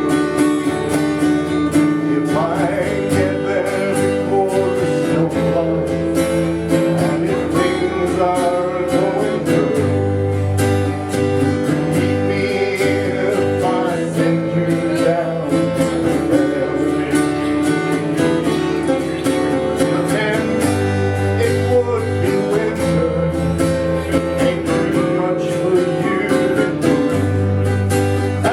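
A folk band playing an instrumental break of a folk song: strummed acoustic guitars over a steady low bass, with a melody line gliding in pitch above the chords.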